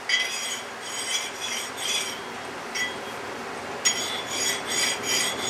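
Metal scraping and rubbing against metal in a series of short, irregular strokes with a thin metallic ring, from a hand plane being handled and worked.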